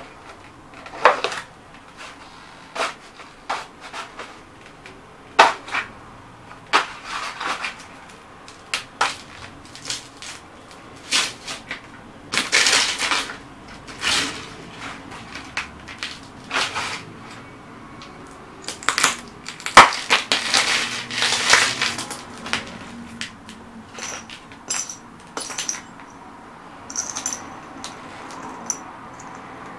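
Cowboy boots crushing vintage radio vacuum tubes and their cardboard boxes on a concrete floor: many separate cracks and crunches of breaking glass and crumpling boxes. Longer crunching comes in runs around the middle, and short high clinks come near the end.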